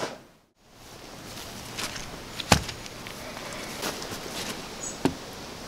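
A brief silence, then footsteps and handling sounds on grass with a few light knocks, the sharpest about halfway through. Near the end, a pumpkin is set down on a wooden log stump with a short thud.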